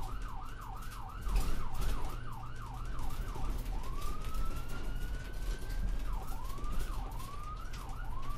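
Electronic emergency-vehicle siren: a fast yelp of rising-and-falling sweeps, about three a second, then one slow rising wail about four seconds in, then quick sweeps again near the end.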